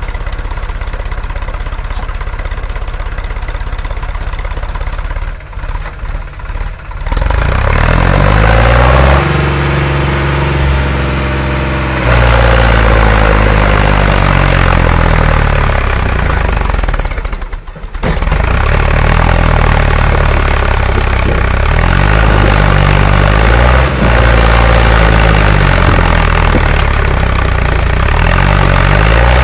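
Sonalika tractor's diesel engine idling, then revved hard about a quarter of the way in and held at high revs, its pitch rising and falling, with a brief drop just past the middle. The tractor is straining to pull its trailer free of deep sand.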